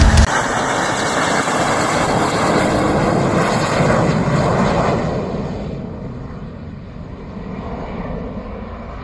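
Northrop F-5E Tiger II jets flying past: a loud rushing roar with a faint whine in it, fading away over the last few seconds as the highest sounds drop off first.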